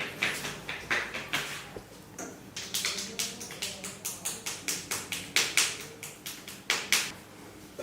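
Quick runs of sharp cracks and slaps from hands working on skin in a barber's massage, about four or five a second, with short pauses and two louder cracks near the end.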